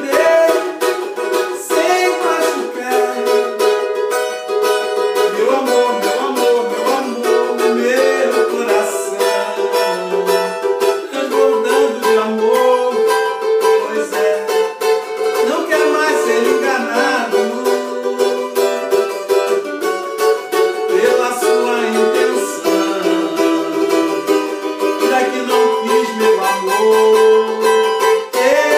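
Cavaquinho strummed steadily in a pagode rhythm, with a man's voice singing along at times.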